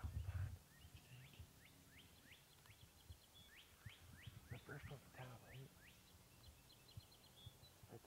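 Songbird singing a run of quick, steeply down-slurred whistled notes, with short high ticking notes before and after. A low thud of handling noise comes right at the start.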